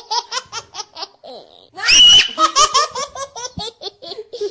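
A young child laughing in quick, rhythmic bursts, with a loud, high squeal about two seconds in.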